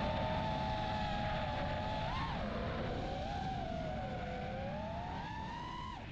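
Brushless motors of an FPV freestyle quadcopter (Axis Flying AE2207 1960KV) whining under throttle over a low rushing noise. The pitch swells briefly about two seconds in, wavers, then climbs before dropping sharply right at the end.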